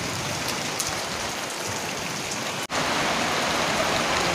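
Steady rain falling on an open yard. The sound cuts out for an instant a little over halfway through and comes back louder.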